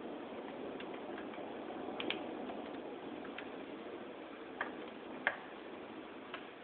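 Thunderstorm rain falling steadily, with scattered sharp ticks of drops striking a hard surface at irregular intervals, one louder tick a little after five seconds in.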